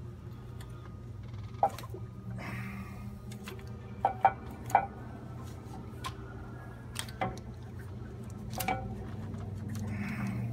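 Sharp clinks and knocks of metal parts as a DT466's high-pressure oil rail is gripped, worked loose and lifted off the cylinder head, with three close together about four seconds in, over a steady low hum.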